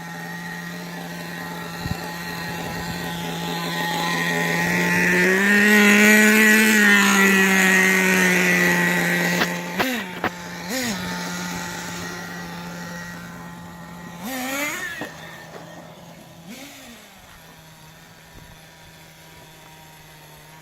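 Small two-stroke RC car engine running at a steady idle. It grows louder and slightly higher for a few seconds, then gives several short throttle blips.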